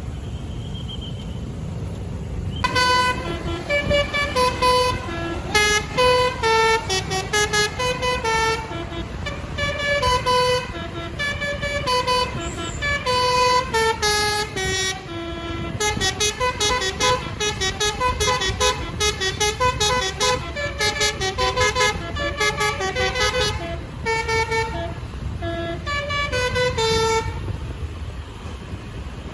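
Basuri telolet multi-tone air horn on a bus playing a long melodic tune, quick runs of short notes rising and falling, from about three seconds in until near the end. A steady low rumble of engine and road noise lies under it.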